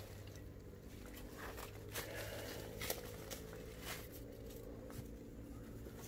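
A person walking over the forest floor: faint, irregular crunches and rustles of footsteps in leaf litter, with a few small snaps.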